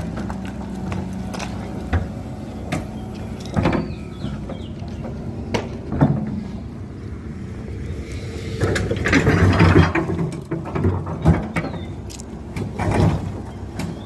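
Excavator running with a steady engine hum, with repeated metallic clanks and knocks. A louder, rougher stretch comes about nine to ten seconds in, and a shorter one near the end.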